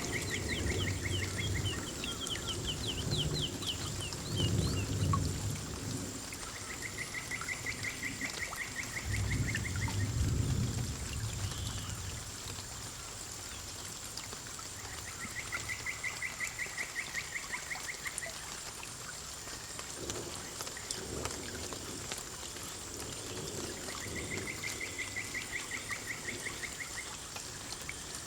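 Rainforest ambience: water pouring and trickling over a steady hiss, with low rumbles of thunder a few times. A rapid pulsed call repeats about every eight seconds, with higher trills early on.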